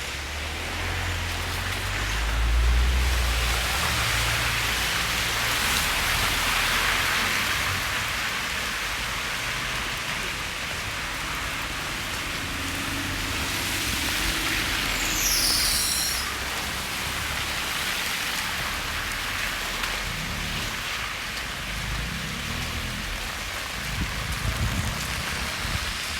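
Steady rain falling on a wet city street, with a low rumble swelling about two to four seconds in. There is a brief high chirp around the middle and a few low thumps near the end.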